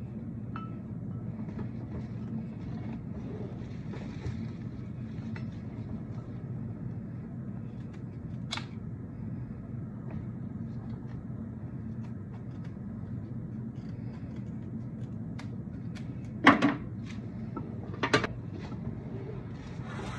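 Rose stems being snipped with scissors and handled at a glass vase: scattered sharp clicks and knocks, the two loudest near the end, over a steady low hum.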